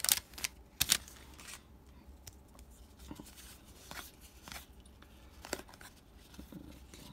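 A torn-open trading card pack's wrapper crackling in the first second as the stack of cards is pulled out. After that come faint ticks and light rustles of cardboard cards being thumbed through and sorted by hand.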